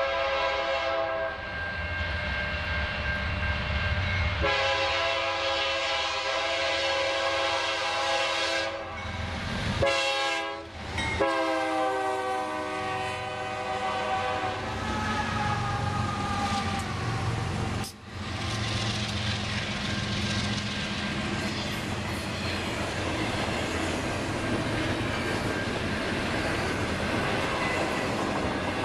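Air horn of a BNSF freight's lead GE C44-9W diesel locomotive sounding the grade-crossing signal of long, long, short, long blasts, its pitch dropping during the last blast as the locomotive passes. The GE diesel locomotives and double-stack container cars then roll by close at hand, a steady rumble and clatter of wheels on rail.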